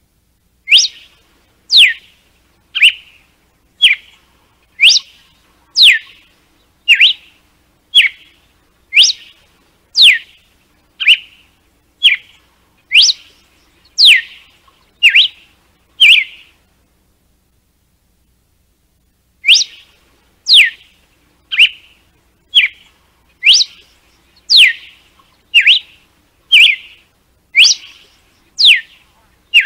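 Red-cowled cardinal (galo-de-campina) singing its 'açoite' (whip) song: loud, sharp whistled notes about one a second, alternating a note that drops steeply in pitch with a shorter one. The song breaks off for about three seconds past the middle, then starts again.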